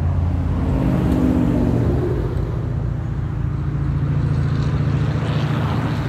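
A motor engine running with a steady low drone, its pitch sagging slightly in the first couple of seconds.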